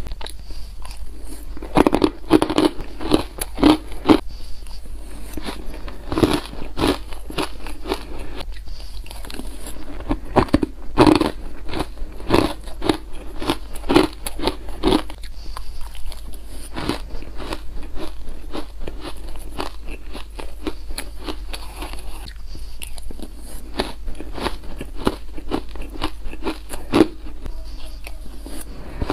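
Close-miked crunching and chewing of frozen flavoured ice in the mouth: clusters of rapid sharp crunches with each mouthful, thinning out between bites.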